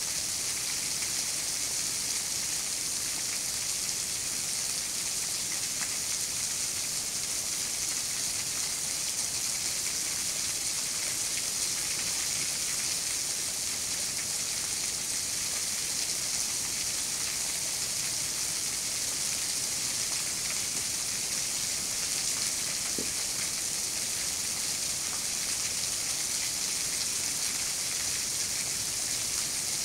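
Water of a thin seasonal waterfall trickling off a rock ledge and splashing onto the rock below: a steady, rain-like hiss.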